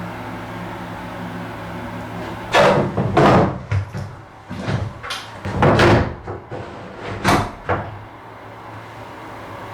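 A steady low hum from a household appliance or fan, with a run of knocks and clatters of things being handled for about five seconds in the middle, like cupboard or door knocks.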